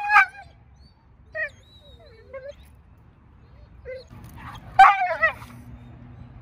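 Young Doberman barking, whining and yelping as she fights being handled and muzzled: a sharp bark at the start, a few short whines and yelps, then a louder burst of barks and yelps about five seconds in.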